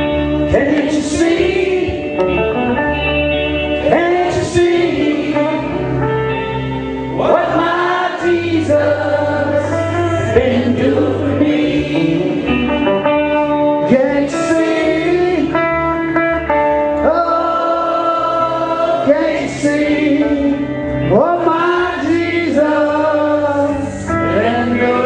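Gospel song: singing over instrumental backing, with steady bass notes underneath.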